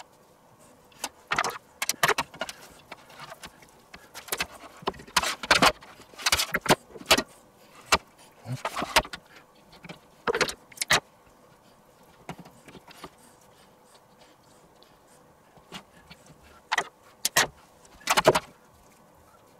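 Metal rotisserie spit and its prongs clinking, rattling and knocking against a stainless-steel roasting pan as a trussed whole duck on the spit is handled, in irregular clusters of sharp clicks with quiet gaps between. A faint steady hum runs underneath.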